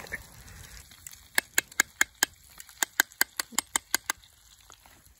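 A knife rapping the lid of a pickle jar to loosen a lid that is stuck fast: a quick run of about fourteen sharp taps, roughly five a second, that stops about a second before the end.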